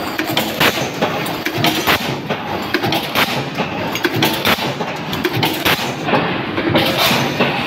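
Power press stamping sheet-metal parts in a progressive die, a sharp clank on each stroke at about three strokes a second, over a steady mechanical din.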